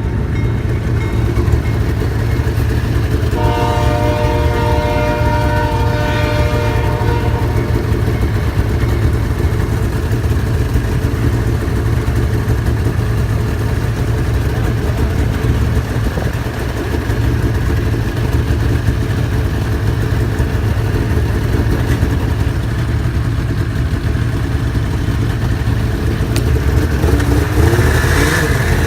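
Vintage snowmobile's two-stroke engine running steadily under way, with a low, constant drone. The engine note holds steady for a few seconds early on and shifts near the end.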